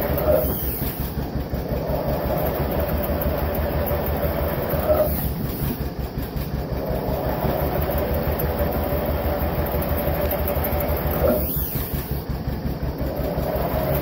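Vintage John Deere two-cylinder diesel tractor engine running with a steady, rhythmic exhaust beat. It briefly gets louder near the start, about five seconds in and again about eleven seconds in.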